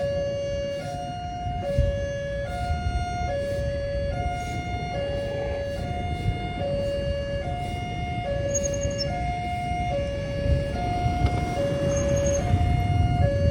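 Electronic two-tone warning siren of a railway level-crossing gate, alternating steadily between a lower and a higher tone, each held just under a second. A low rumble runs underneath and grows louder near the end.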